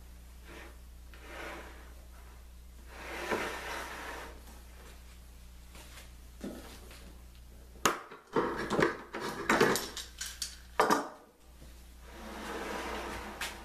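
Workshop handling sounds of wood and tools: soft rubbing and sliding, then a quick run of sharp knocks and clatter a little past the middle, over a steady low hum.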